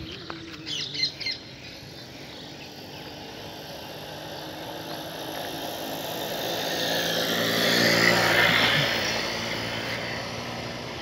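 A vehicle passing by, its noise swelling to a peak about eight seconds in and then fading. A few short bird chirps come about a second in.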